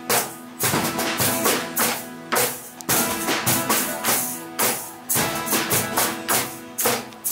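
Several acoustic guitars strummed together in a steady rhythm, with sharp percussive taps on the strings between down- and up-strokes (a tap-tap-down-down-up strumming pattern) and chords ringing between strokes.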